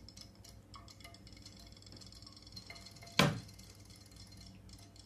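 Shallow glass water bowl knocked once with a sharp clink about three seconds in, as a kitten paws at the toy fish in it. Faint irregular ticking and light clinks run underneath.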